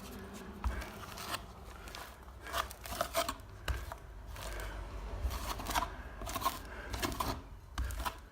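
Short, irregular scraping and tapping strokes of a hand plastering tool working on a plaster wall.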